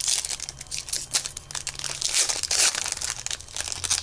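Plastic-foil trading card pack wrapper being torn open and crinkled by hand: a steady run of crackling and tearing, densest past the middle.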